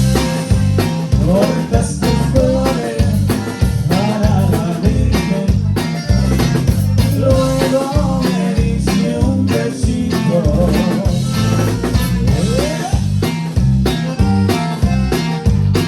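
Conjunto band playing live, with a bass line stepping along, drums keeping a steady beat and a melody on top.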